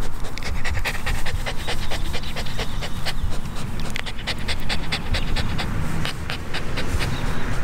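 Golden retriever puppy panting quickly, several short breaths a second.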